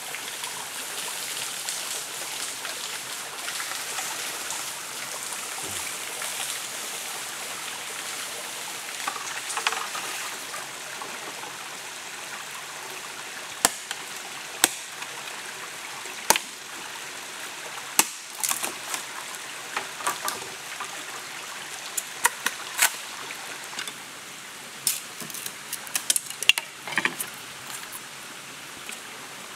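A stream flowing steadily. From about halfway, sharp knocks and clacks of a machete working a bamboo pole and of bamboo sticks being handled, coming irregularly and most often near the end.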